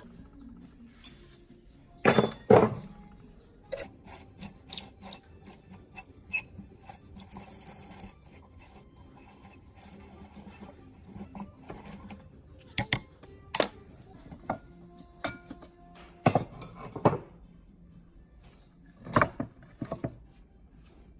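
Scattered clicks, knocks and clunks of tools and metal parts being handled while an old rusted cutting machine is worked on, with faint background music. The loudest knocks come about two seconds in, and again around the middle and near the end.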